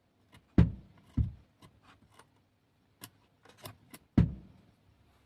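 Clicks, each followed by a low thump, about half a second in, again a little later, and once more near the end, with faint ticks between them: switching on the repaired 4440 audio amplifier, with its speaker popping.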